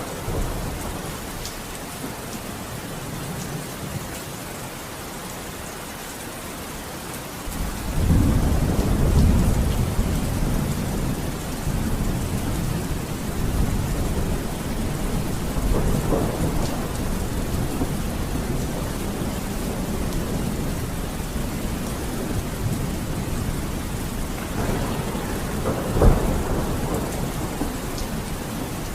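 Steady heavy rain with rolling thunder: a deep rumble swells in about seven seconds in and keeps rolling in waves, with a sharper thunderclap near the end.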